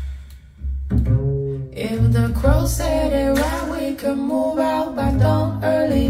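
Recorded music playing over a pair of hi-fi loudspeakers: sustained deep bass notes, with a wavering melody line coming in over them about two seconds in.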